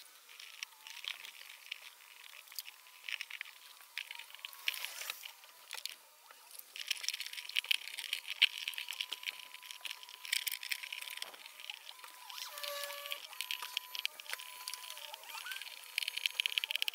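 Crinkling and crackling of a plastic sheet being pressed and rubbed by hand, in irregular runs of rapid clicks. The handling is busiest about halfway through and again near the end.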